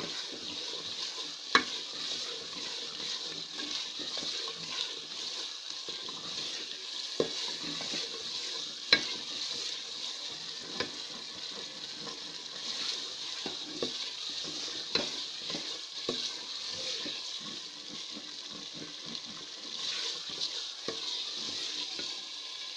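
Potatoes and onion-tomato masala sizzling as they fry in a metal pot, stirred with a wooden spoon that scrapes and knocks against the pot at irregular moments. The sharpest knocks come about a second and a half in and about nine seconds in.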